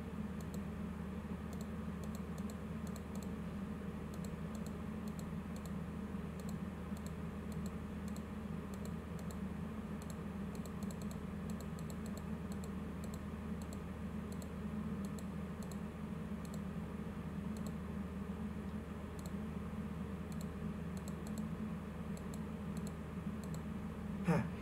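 Faint, irregular clicking of computer keys over a steady low hum.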